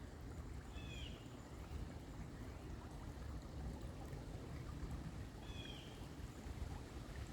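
Steady rush of moving water. A short high chirp sounds twice, about a second in and again near the end.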